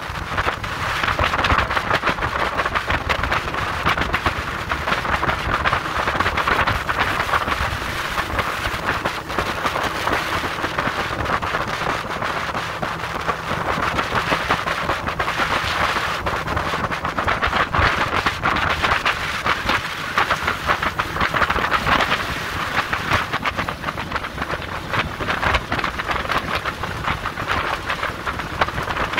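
Steady rush of wind buffeting the microphone and water rushing and splashing along the hull of a boat running at speed, with a constant crackling spray-like texture.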